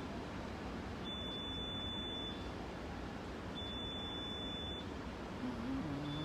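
Electronic alarm beeping: a steady high-pitched tone, about a second long, repeating after roughly a second's gap, over steady street background noise. A lower pitched tone comes in near the end.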